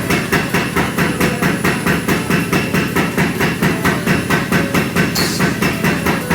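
Steady, rapid hammering while forging metal: even blows, about four a second, with a brief hiss about five seconds in.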